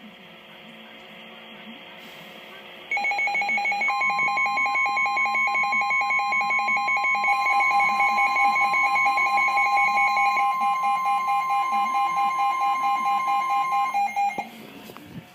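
Emergency Alert System alert tone: a loud, harsh alarm of two steady tones with a rapid flutter, starting about three seconds in after faint hiss and cutting off abruptly shortly before the spoken warning.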